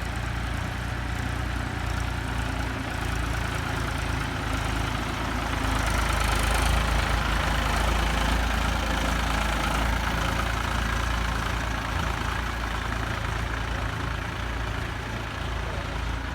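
Tractor engine running steadily, growing louder about halfway through and easing off slightly near the end.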